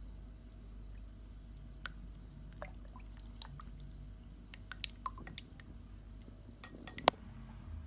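Food-preparation handling sounds: a scattering of small wet clicks and taps, with a sharper tap about seven seconds in.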